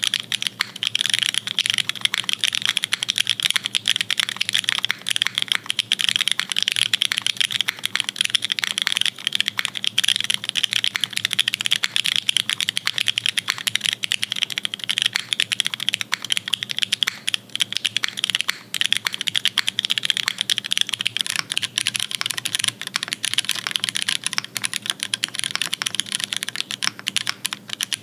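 Fast, continuous typing on a custom-built mechanical keyboard: a dense, unbroken stream of key clacks.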